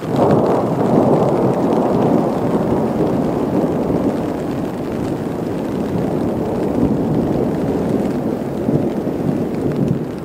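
Rolling thunder from a passing thunderstorm: a loud, continuous rumble that sets in suddenly and begins to fade near the end.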